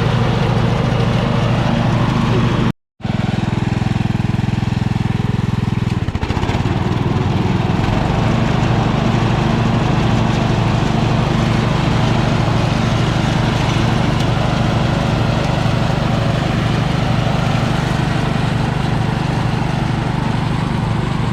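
An engine running steadily. It cuts out completely for a moment about three seconds in, then carries on with a slightly different pitch pattern from about six seconds in.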